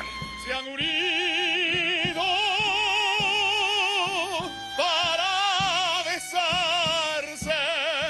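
A man singing in an operatic style, holding long notes with wide vibrato over several phrases with short breaks between them. A small string ensemble of cello, violin and double bass accompanies him, with plucked notes underneath.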